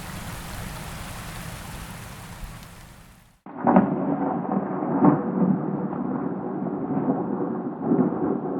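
Steady rain fading out over about three seconds, then, after a brief gap, a louder thunderstorm begins. Rolling thunder with heavy rain, with three louder thunder claps, the first right at the start, another about a second and a half later, and one near the end.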